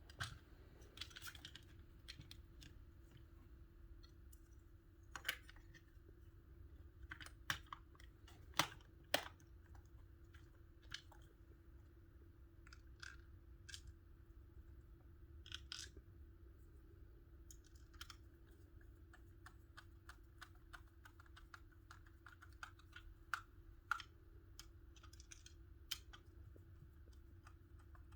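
Faint, scattered small clicks and ticks of a screwdriver and plastic parts of an in-wall power cable kit being handled while screws are taken out, over a faint steady hum.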